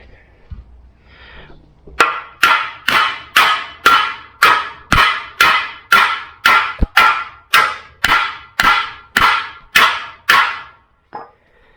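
Soft copper hammer striking a stuck steel suspension part in a steady run of about twenty blows, a little over two a second, each with a short metallic ring. The blows are meant to drive the seized part out, and it is not clearly shifting.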